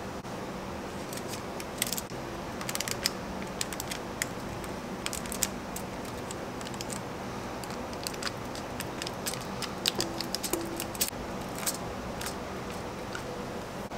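Sharp irregular clicks and taps of a metal fork pressing down through puff pastry onto a parchment-lined metal baking tray as the pastry edges are crimped, over a steady low hum.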